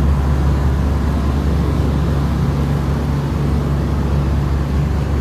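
A steady, loud low rumble of a running vehicle that does not change.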